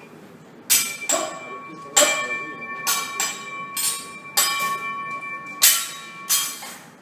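A metal object struck about ten times in an uneven rhythm, each strike ringing on at the same few clear pitches like a bell.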